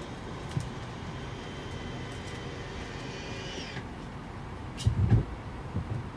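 Cabin noise inside an Airbus A220 airliner: a steady rumble with a faint high whine that stops about four seconds in, then a few heavy thumps about five seconds in.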